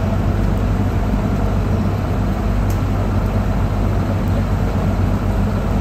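A nearby engine idling with a steady low hum, under a constant hiss.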